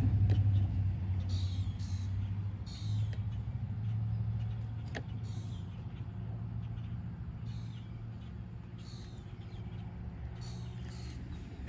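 A low vehicle rumble fades away over the first few seconds. Over it a bird gives short, falling calls, one every second or two.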